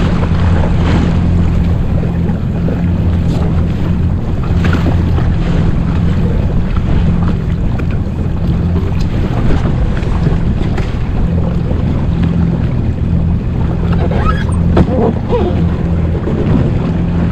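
Yamaha jet ski engine running steadily as the craft moves through the sea, with water rushing along the hull and wind buffeting the microphone.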